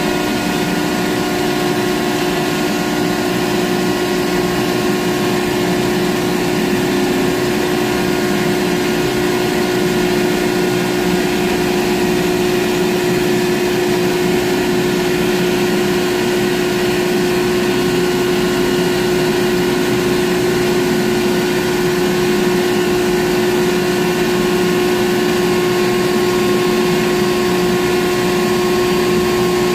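Ship's deck crane machinery running steadily, heard from inside the operator's cab: a constant hum with several steady tones that do not change in pitch.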